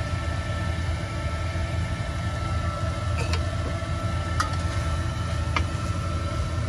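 A spatula stirring octopus pieces with onion and garlic in a nonstick pan, giving a few light knocks and scrapes over a steady low hum.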